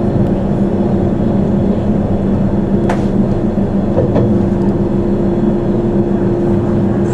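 Electric train running through a station yard, heard from on board: a steady motor drone with two sharp clicks from the wheels about three and four seconds in.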